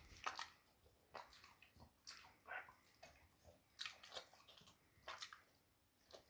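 A dog chewing a crunchy homemade treat: faint, irregular crunches and bites about once or twice a second.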